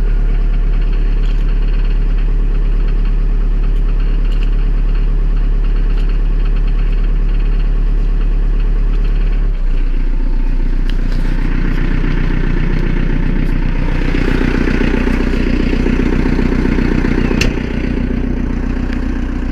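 Diesel engine idling steadily just after a cold start, warming up. About halfway through its note shifts and it grows fuller, and a single sharp click comes near the end.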